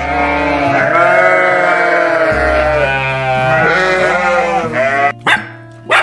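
Goats bleating: several long, wavering bleats one after another, stopping about five seconds in, over background music.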